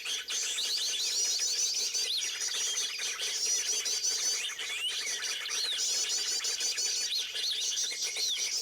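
Many small birds chirping and twittering at once: a dense chorus of high, rapidly repeated trills and short rising-and-falling whistled notes, continuing without a break.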